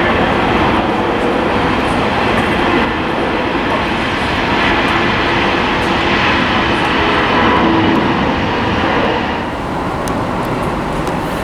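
Loud, steady jet engine noise of an airliner going by, a dense rushing sound with a faint steady hum in it; it eases a little about nine and a half seconds in.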